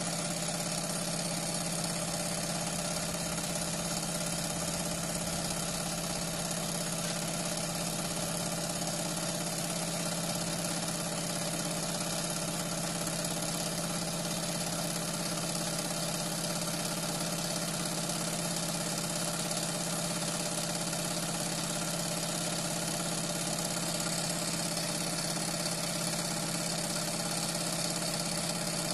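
Industrial blind stitch sewing machine running at a steady speed as it sews double-faced cashmere: an even mechanical hum that keeps the same pace throughout.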